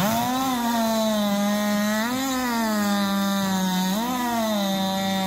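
Chainsaw revving up sharply, then running flat out through a log. Its pitch lifts briefly twice, about two and four seconds in, before settling back under load.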